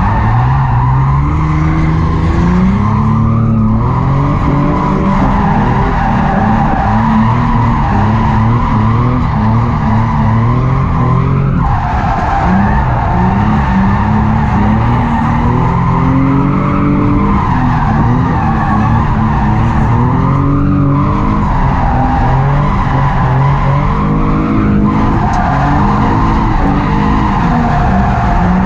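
Nissan 350Z drift car's engine revving up and down through a drift run, with tyres squealing steadily over it. The squeal drops out briefly a few times.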